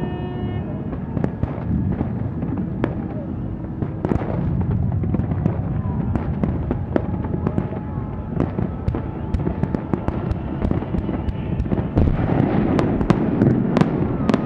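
Fireworks going off: a rapid string of sharp cracks and bangs over a steady low rumble, the crackling growing denser near the end.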